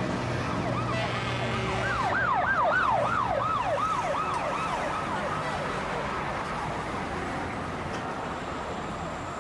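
Emergency-vehicle siren in a fast yelp, its pitch sweeping up and down a few times a second. It is loudest about two to three seconds in and then fades away, over a steady low background hum.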